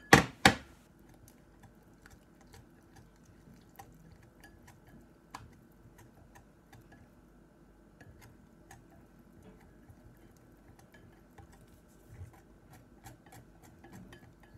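Two loud knocks right at the start, then a wire balloon whisk stirring pancake batter in a bowl, its wires making faint, irregular light clicks against the bowl.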